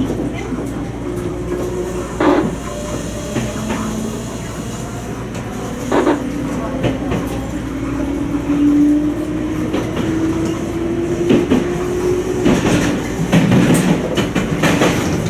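Toyama Chiho Railway 20020 series electric train (ex-Seibu New Red Arrow) running on the line, heard from inside the front car. Wheels knock over rail joints now and then, and a motor hum rises slowly in pitch through the middle as the train gathers speed.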